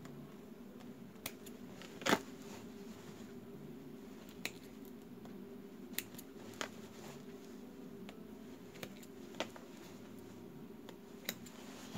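Hands unpicking a seam on denim jeans: a few scattered short, sharp snaps of thread being pulled loose or snipped, the loudest about two seconds in, over a faint steady low hum.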